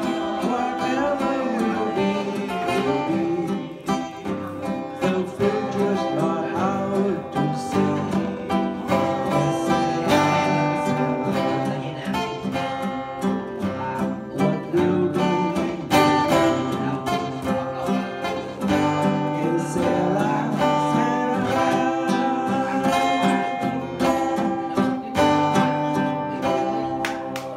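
A man singing into a microphone, accompanied by a strummed acoustic guitar. Near the end the singing stops and the guitar plays the closing chords.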